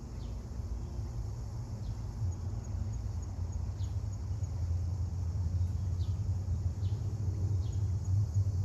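Outdoor ambience: a steady low hum that grows louder about two seconds in, with an insect's faint, regular high chirping and about six short, falling bird chirps.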